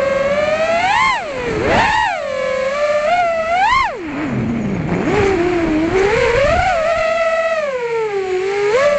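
FPV freestyle quadcopter's brushless motors and propellers whining, the pitch surging up and falling back again and again with the throttle. A little after four seconds in the pitch sinks low, then climbs and holds higher.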